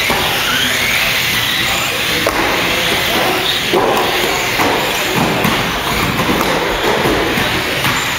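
Several radio-controlled 1/12-scale electric model stock cars racing on a carpet track, their motors whining up and down in pitch, with a couple of knocks as cars hit each other or the barrier, in a hall full of crowd noise.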